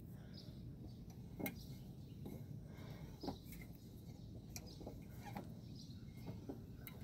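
Quiet outdoor background: a steady low rumble, with a few scattered clicks and knocks and faint high chirps.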